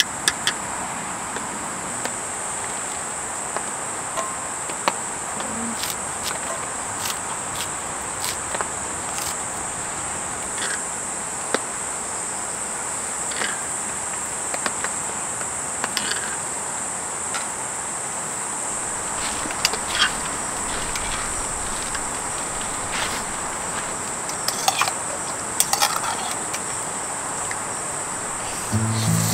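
A chorus of singing insects: a steady, continuous high-pitched trill over a low hiss. Scattered sharp clicks and pops come throughout, more often in the last third.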